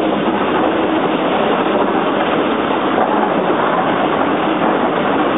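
Steady running noise of a Nilgiri Mountain Railway passenger train, heard from aboard a coach as it climbs the gradient.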